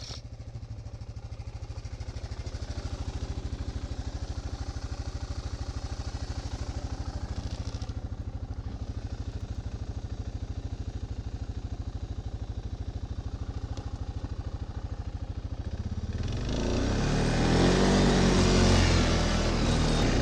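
ATV engine running at a steady idle, then revving up and getting much louder about sixteen seconds in as the machine drives through deep snow.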